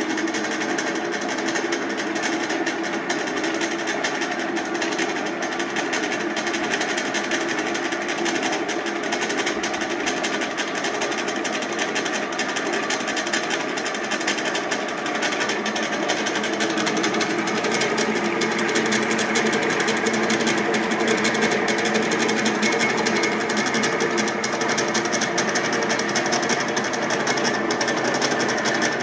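A 1917 Avey drill press running under power from its electric motor and belt-and-pulley drive: a steady mechanical whir with a fast, continuous clatter. It gets a little louder about halfway through.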